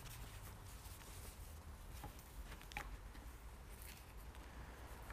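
Quiet room tone through a lectern microphone: a faint steady low hum with a few faint, soft ticks, about three spread through the pause.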